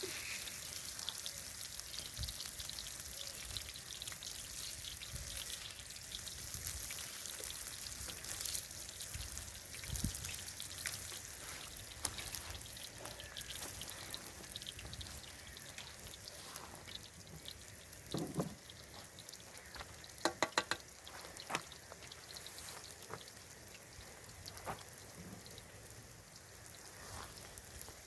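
Onion frying in hot oil on a griddle: a steady sizzle full of small crackles, with a few knocks and a quick run of clicks in the second half.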